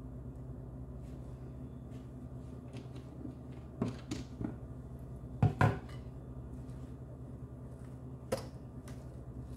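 A few light knocks and clicks of kitchenware while a potato and flour batter is being made, the loudest a quick pair about five and a half seconds in, over a steady low hum.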